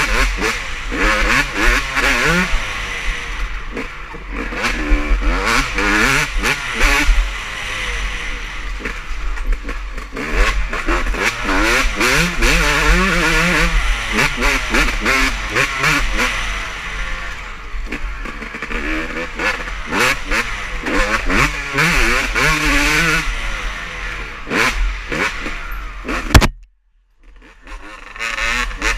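Motocross bikes racing past, engines revving hard, rising and falling as riders shift and overlapping as several bikes go by. Near the end the sound cuts off abruptly with a click for about a second, then resumes.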